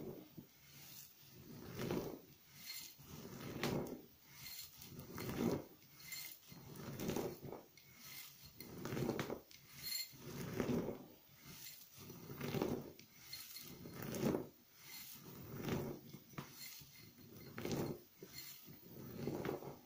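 Dried, crumbly flakes of grated NMZhK laundry soap being crunched and ground under a metal pestle in a metal mortar: crackling crunches that swell with each grinding stroke, about one every couple of seconds.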